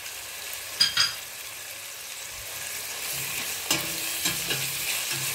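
Onions, spices and ginger-garlic frying in oil in a stainless steel pot, sizzling steadily. A steel ladle clinks against the pot about a second in, then stirs the mix with scraping and knocks in the second half.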